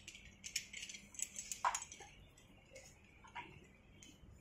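Metal carabiners and rope-access hardware clinking and clicking as they are handled on a harness. A flurry of light clicks comes in the first two seconds, with one ringing clink, the loudest, about a second and a half in, and one more click later.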